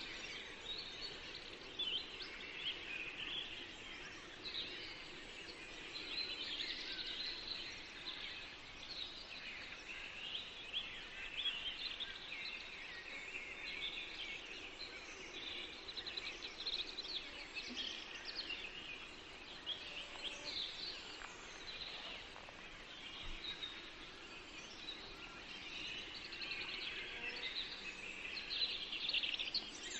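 Many small birds chirping and calling at once in a continuous chorus, over a low background noise.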